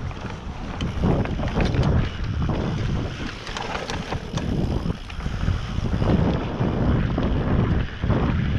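Wind buffeting a handlebar-mounted action camera's microphone as a mountain bike descends a dirt forest trail at speed. Tyres roll over dirt and leaves, with short knocks and rattles from the bike over bumps.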